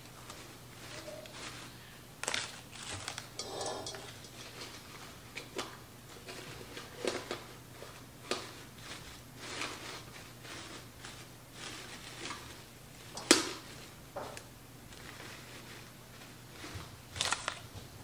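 Artificial flower stems and fabric petals rustling and clicking as they are pushed into and adjusted in a vase, in short irregular bursts, with a sharp click about 13 seconds in.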